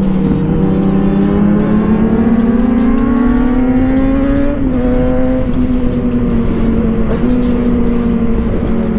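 Sport motorcycle engine pulling hard up a climb, its pitch rising steadily for about four and a half seconds, then dropping suddenly at an upshift and holding steady.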